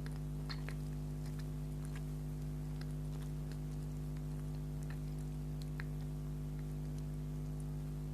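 Soft mouth clicks and chewing of bakery sweets, a few small sticky clicks scattered through, over a steady electrical hum that is the loudest thing heard.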